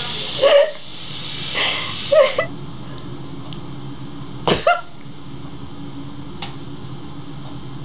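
A person's voice in three short bursts, like stifled laughs, over a steady low room hum.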